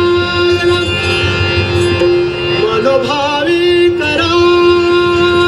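Live Dashavatar folk-drama singing: a voice sings an ornamented melody, with wavering runs about halfway through, over a steady drone held on one pitch.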